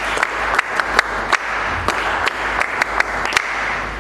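Applause from many hands, a steady clatter with loud single hand claps standing out above it, dying down near the end.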